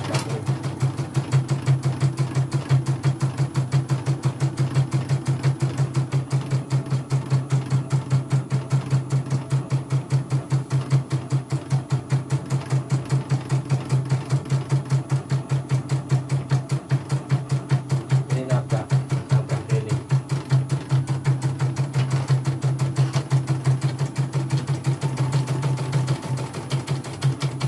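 A CNY computerized embroidery machine stitching a design with a rapid, even stitch rhythm. It is a test run after repairing the machine's irregular, messy stitching.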